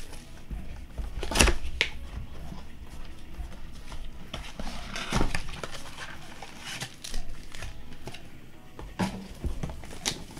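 Trading-card blaster boxes and packs being handled on a table: scattered taps and knocks, with light crinkling of plastic wrap.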